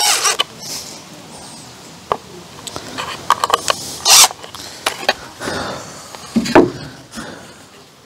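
Clicks, knocks and short noisy bursts of a scrap board being screwed onto a wooden rack with a cordless drill, the loudest bursts at the start and about four seconds in.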